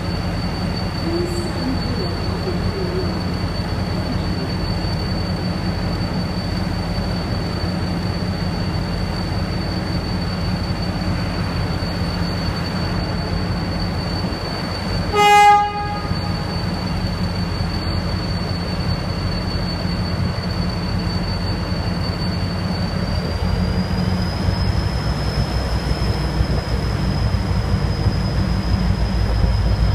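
V/Line A-class diesel-electric locomotive A66 running as it creeps along the platform, its EMD two-stroke diesel engine giving a steady drone under a thin high whine. About halfway through the horn sounds once, a short blast of about a second. Near the end the engine grows louder and the whine rises a little as it powers up.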